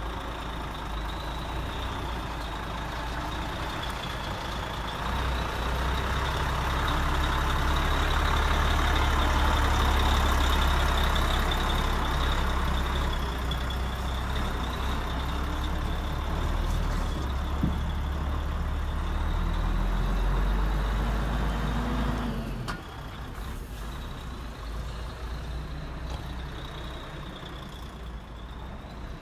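Diesel truck engine sound from a remote-controlled MAN 6x6 crane truck as it drives, with a steady high whine over it. It grows louder after about five seconds and drops back about three quarters of the way through.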